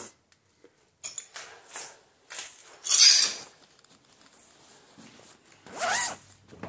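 Clattering and crunching of debris, in irregular short bursts, loudest about three seconds in, with another sharp clatter near the end.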